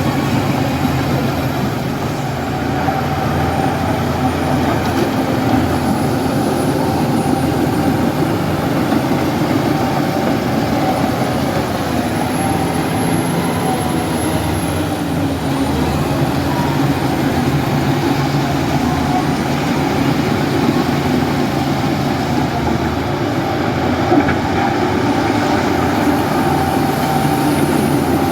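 Heavy diesel machinery, a bulldozer or garbage truck, running steadily with a continuous engine drone.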